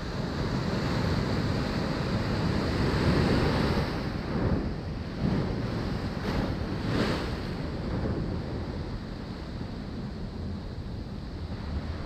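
Ocean surf washing onto the beach, with wind buffeting the microphone. The wash swells a little about a second in and eases off after about four seconds.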